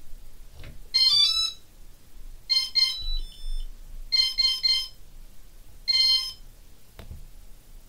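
A quadcopter's electronic speed controllers and Pixhawk 4 flight controller beeping through ESC calibration. A quick rising run of tones comes about a second in, then two short beeps, three short beeps, and one longer beep near the end.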